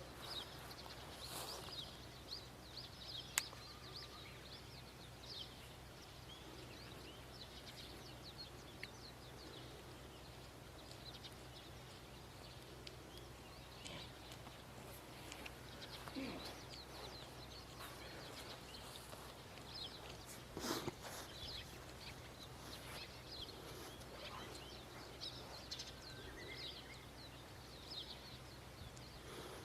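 Faint outdoor ambience: small birds chirping throughout over a low steady hum, with a few brief sharper sounds, the loudest about twenty seconds in.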